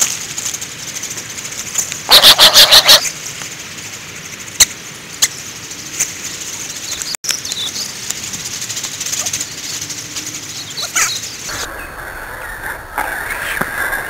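Ducks on a pond: about two seconds in, a loud burst of about six rapid wingbeats as a duck flaps close by, over a steady outdoor hiss with a few sharp clicks. A low rumble takes over near the end.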